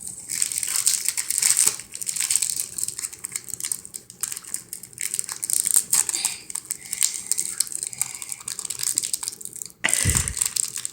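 A photocard pack's wrapper being crinkled, squeezed and torn in a long run of crackling as a child struggles to get it open. There is a dull thump near the end.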